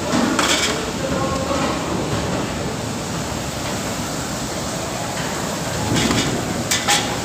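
Steady hiss of hot oil as puris deep-fry in an iron kadai, with short metallic clatters about half a second in and again near the end as they are scooped out with a wire strainer and tipped into a steel colander.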